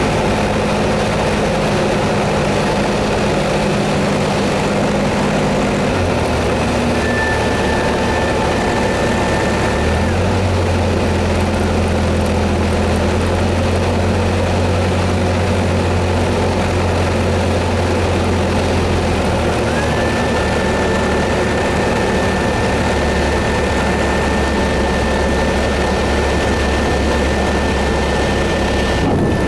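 Steady, loud engine noise with a low drone that shifts pitch a few times, joined twice by a thin high whine.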